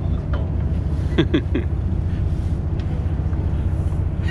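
Boat engine running at idle, a steady low drone, with a brief cluster of two or three short sounds about a second in.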